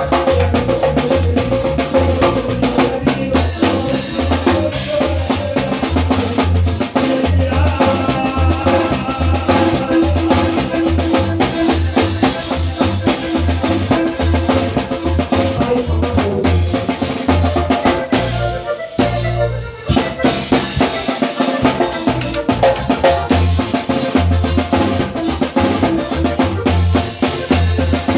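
Norteño-style zapateado music with a steady drum beat, briefly dropping out for a moment about two-thirds of the way through.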